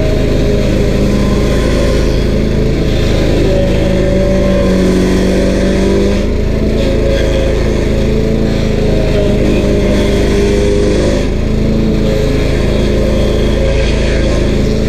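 Stump grinder's 13 HP Honda single-cylinder engine running steadily, its pitch dipping and rising a little as it works.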